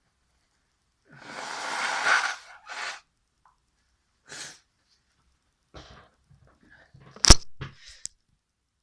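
A person's breath and sneeze sounds while trying to force a sneeze. About a second in there is a long noisy breath lasting over a second, followed by a few short sniffs and breaths. A sharp, loud burst near the end is the loudest sound.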